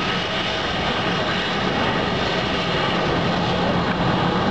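Jet engines of a Garuda Indonesia Boeing 737 airliner running at high power for takeoff: a loud, steady rush of noise with a thin, even whine over it.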